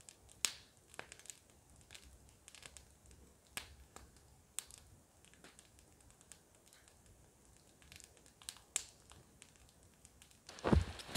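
Sparse, irregular sharp pops and ticks of a wood fire crackling in a small wood stove. Near the end, heavy footsteps start.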